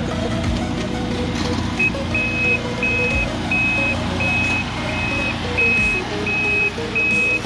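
A vehicle's electronic warning beeper, like a reversing alarm, sounding a steady high beep about one and a half times a second from about two seconds in, over steady engine noise.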